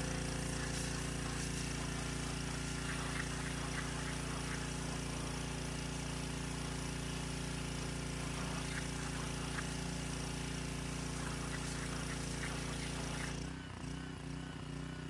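Pressure washer jet hissing as it rinses cleaner off a car tyre and alloy wheel, over the steady hum of the pressure washer's motor. About a second and a half before the end the spray stops while the machine keeps running.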